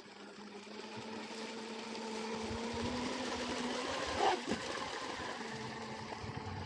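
Blackjack 24 RC catamaran running on the water, its brushless motor (Rocket 3660, 2150 kV on 4S) giving a steady whine that swells a little over the first few seconds.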